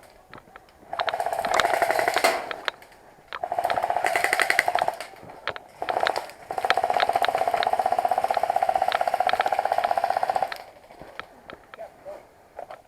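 Airsoft rifle firing on full auto in four bursts of rapid, even shots. The last burst is the longest, about four seconds.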